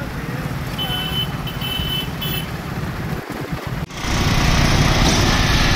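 Wind rumbling on the microphone during a bicycle ride along a street, with a few short high beeps between about one and two and a half seconds in. Near four seconds in the sound cuts abruptly to a louder, fuller rush of wind noise.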